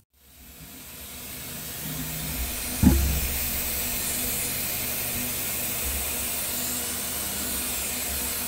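Steady hiss with a low hum, fading in at the start, and one sharp knock about three seconds in.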